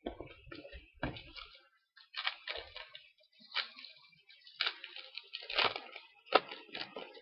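Foil trading-card pack wrapper crinkling and tearing as it is opened by hand, a string of irregular crackles.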